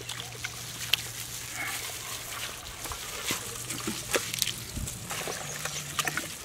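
Wet squelching and sticky smacks of hands kneading chicken drumsticks in a thick marinade, a string of short irregular clicks and squishes.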